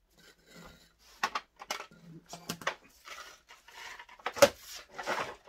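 Plastic clicks, knocks and rustling as the hose and accessories of a Swan SC15834N upright vacuum cleaner are handled and fitted, with the sharpest knock about four and a half seconds in.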